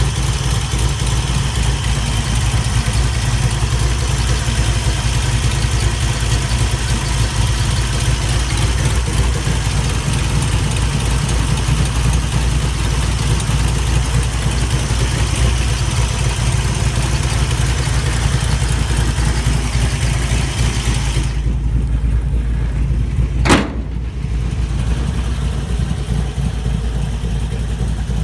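358 small-block Chevy V8 idling steadily with a strong low rumble. Near the end the sound turns duller and there is a single sharp bang.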